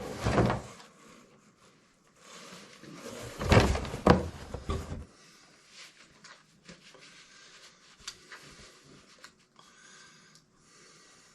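Handling noise as wireless metal-detector headphones and their packaging are handled: a short rustling burst at the start, a louder spell of rustling and knocks from about three to five seconds in, then faint scattered clicks.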